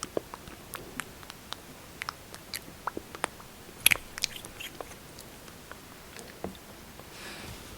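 Close-up lip smacking: irregular small wet, sticky clicks and pops from lips coated in lipstick and gloss, a few a second, with a louder cluster about halfway through and a soft breath near the end.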